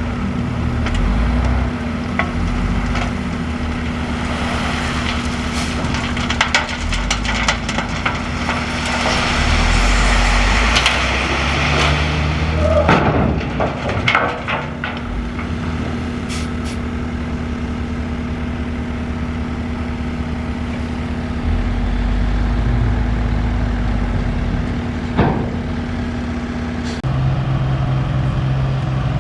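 Diesel engine of heavy construction equipment running steadily, with a long rushing, hissing noise in the first half and a few sharp clanks. The engine note shifts near the end.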